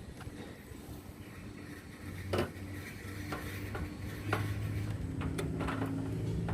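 Scattered clinks and knocks of hard parts being handled, the loudest about two and a half seconds in, over a steady low hum that sets in at about two seconds.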